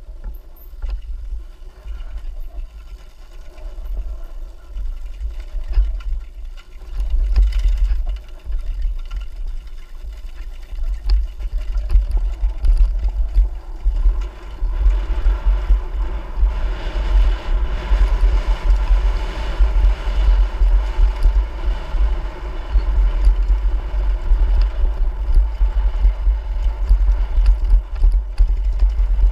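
Off-road motorcycle being ridden on a trail, wind buffeting the microphone over the engine, which grows louder from about halfway through.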